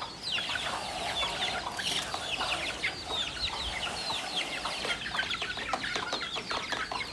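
A flock of young chickens peeping without a break: many short, high, falling calls overlapping.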